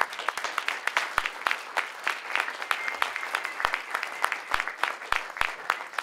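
Audience applause: many hands clapping steadily together.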